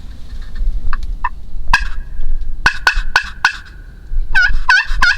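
Wild turkey tom gobbling over and over, close by; a run of sharp notes in the middle, then a fast rattling gobble near the end, the loudest part.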